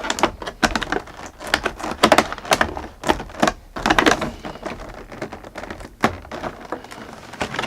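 A drone's retail box being cut and opened by hand: a knife slitting packing tape, with cardboard and plastic packaging rustling and clicking in quick, irregular clicks and short scrapes.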